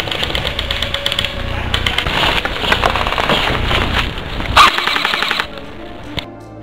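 Airsoft rifles firing rapid bursts on full auto: a fast, clattering run of shots with one sharper, louder crack near the end. Background music takes over in the last half second or so.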